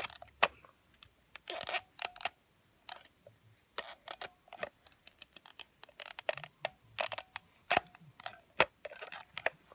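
A plastic shark toy's teeth being pushed and worked into a bitten apple: irregular sharp clicks mixed with brief crunching, scraping sounds of the apple flesh.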